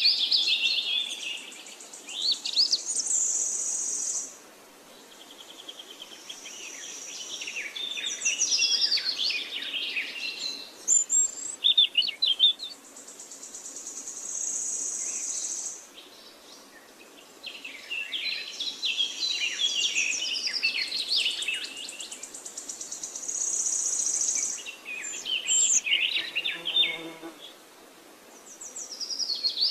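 Birds chirping and calling in quick, varied phrases, with several stretches of a high, steady buzzing trill.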